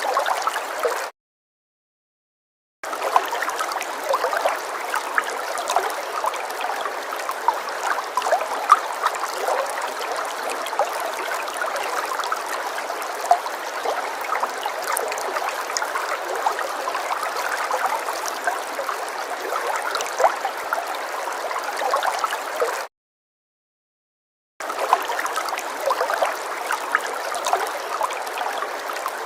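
Water falling and gurgling in a small cascade or stream, a steady splashing with many small bubbling drips. It cuts out to dead silence twice, for under two seconds each: about a second in and a few seconds before the end.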